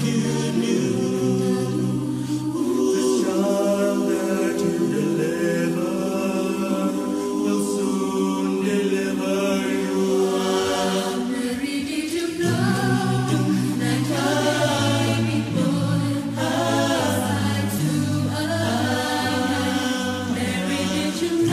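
A cappella choir singing in close harmony, several voice parts holding and moving chords together over a low sustained bass line. About halfway through, the bass drops deeper and grows fuller.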